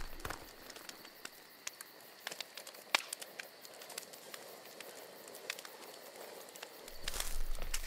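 Campfire crackling, with scattered sharp pops and snaps over a faint hiss. Near the end something louder starts up.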